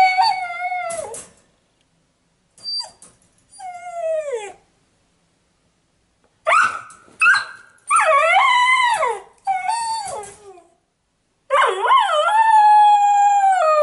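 Australian Labradoodle puppy howling and whining in a string of about six high cries, each sliding down in pitch, with short yelps early on and two long, wavering howls in the second half. It is the distress of a puppy with separation anxiety, shut alone in his crate.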